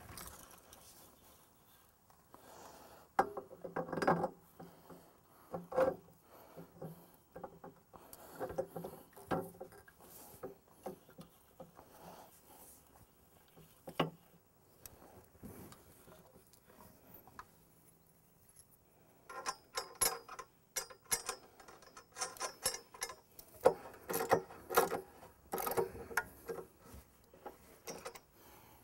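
Intermittent metal clinks, knocks and rattles as a portable stump grinder's steel leg and its fittings are handled, fitted and adjusted, with a busier run of clatter in the last third.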